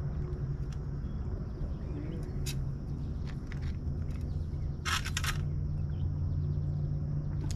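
Handling noise as an angler works with fishing tackle at the water's edge: a few light clicks, then a short burst of scraping clicks about five seconds in, over a steady low hum.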